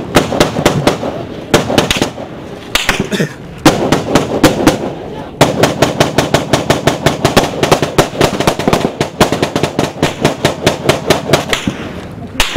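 Loud, close small-arms gunfire. A few short bursts come first, then about five seconds in a long run of rapid, evenly spaced shots, about six a second, that stops just before the end.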